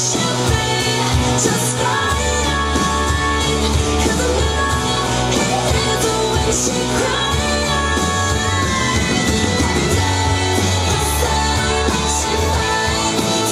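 A pop-rock song with a singing voice over a band, playing loud and steady; a heavy bass comes in about two seconds in.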